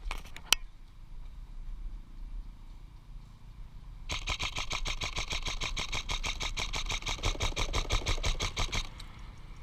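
Airsoft rifle firing a sustained full-auto volley of about five seconds, a fast even rattle of roughly ten shots a second, after two sharp clicks at the very start.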